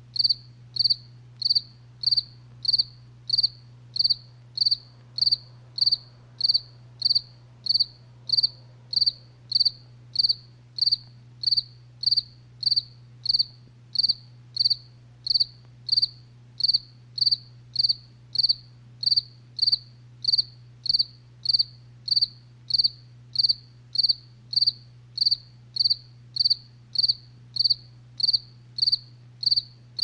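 A cricket chirping steadily in short, evenly spaced high chirps, about three every two seconds, over a faint steady low hum.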